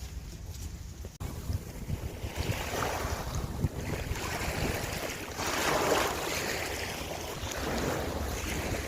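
Sea waves washing onto the shore, one wash swelling loudest about five to six seconds in, with wind rumbling on the microphone throughout.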